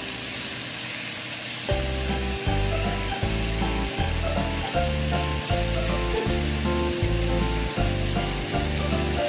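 Beef strips with onions and garlic sizzling in a hot frying pan as they are turned. Background music runs under it, and its steady bass beat comes in about two seconds in.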